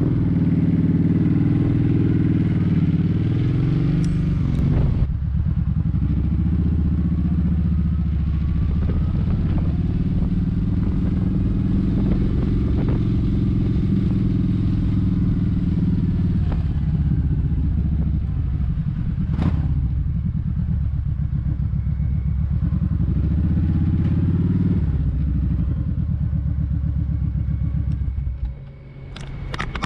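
Kawasaki Vulcan 1700 Vaquero's V-twin engine running loud on the move, its pitch rising and falling with the throttle. It drops away sharply near the end.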